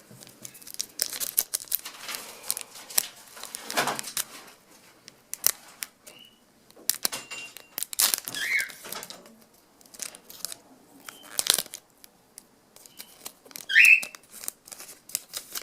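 Foil trading-card pack wrapper being torn open and crinkled by hand, full of rapid crackles and clicks, with a couple of short squeaks from the wrapper.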